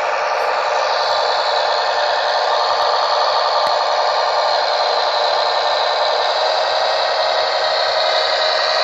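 Model diesel railcar (LINT 27, class 640) running along the track, its onboard sound decoder playing a steady diesel engine running sound through a small loudspeaker, thin and without deep bass.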